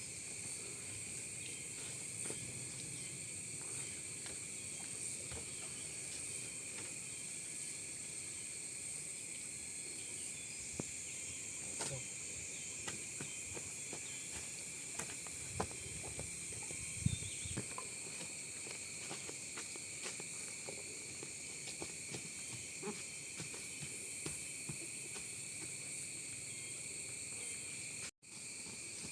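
Steady insect chorus, chirring in several high bands, with scattered light clicks and rustles and a few low thumps around the middle. The sound cuts out for a moment near the end.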